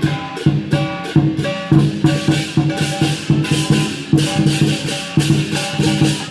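Lion dance percussion: a big drum beaten fast with clashing cymbals, about three strokes a second, stopping suddenly at the end.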